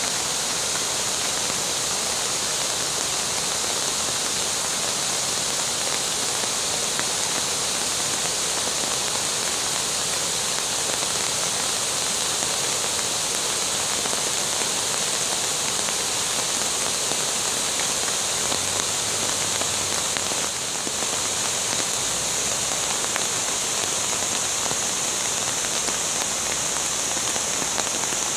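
Water rushing steadily over small cascades, a continuous hiss without a break.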